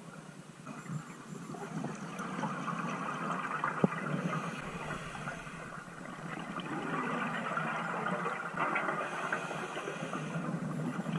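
Scuba regulator breathing heard underwater: rushing, bubbling exhalation noise that swells twice over several seconds, with a sharp click about four seconds in.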